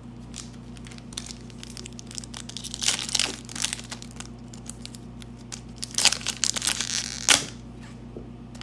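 A foil Upper Deck MVP hockey card pack being torn open and crinkled by hand, in two spells of crinkling and tearing, the second ending in a sharp rip about seven seconds in.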